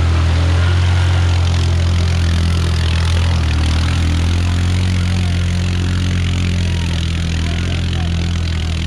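ATV engine running steadily at one even pitch, without revving.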